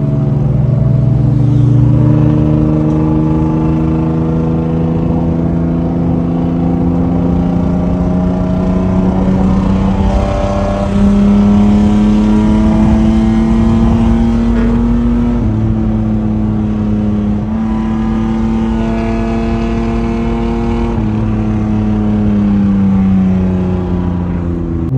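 Mercedes W124 with a straight-piped exhaust, its mufflers removed, heard from inside the cabin while driving under light throttle. The engine note climbs slowly, jumps in pitch suddenly a few times along the way, and falls away near the end as the car eases off.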